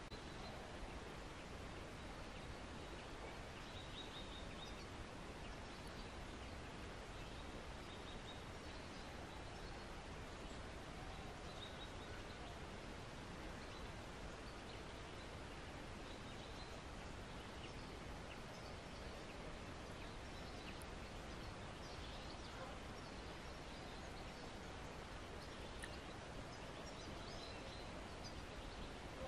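Steady low outdoor background hiss, with faint bird chirps now and then.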